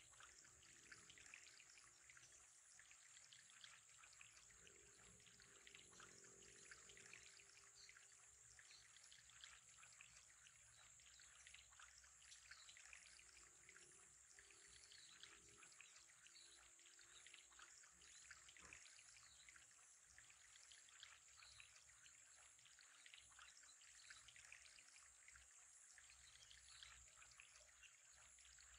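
Faint, steady trickling of water, with a fine continuous patter.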